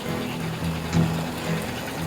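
Instrumental intro music with a low, steady pulse about twice a second.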